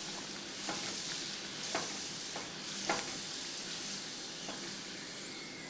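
A puri of whole-wheat dough deep-frying in hot oil: a steady sizzle with a few scattered pops and crackles.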